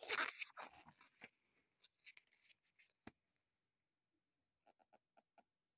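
Paper pages of a large book being turned and handled: a brief rustle as a page turns over at the start, then faint paper rustles and ticks. Near the end comes a quick run of about six soft clicks.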